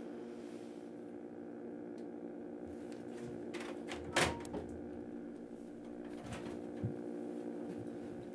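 A steady low drone of several held tones, with a single sharp knock about four seconds in and a few faint taps.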